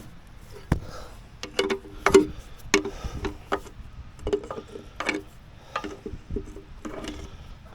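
Irregular metallic clinks and taps, some with a short ring, of a wrench working on an excavator's hydraulic line fitting to take the blown line off.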